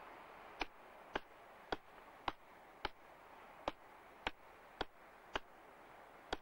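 Hammer blows struck at a steady pace, about two a second, with a short pause near the end: boat-mending work on a wooden fishing launch.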